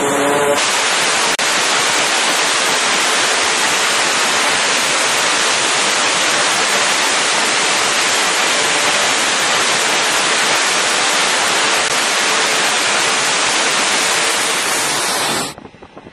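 Twin turboprop engines of a C-2A Greyhound running close by, a loud, steady rushing noise of engines and prop wash. It cuts off suddenly near the end.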